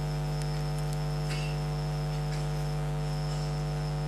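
Steady electrical mains hum, low and constant with many evenly spaced overtones, with a few faint clicks.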